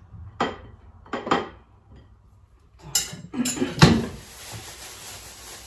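Kitchen clatter of dishes and cutlery during sandwich making: two short knocks, then a quick run of clinks and knocks with the loudest hit about four seconds in.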